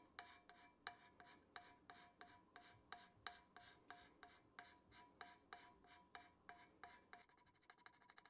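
Hand scraper cutting the Turcite facing on a milling machine saddle's way in short, even strokes, about three a second, each with a faint brief ringing tone. This is step scraping to take down the high spots and bring the way flat. Near the end the strokes turn quicker and lighter.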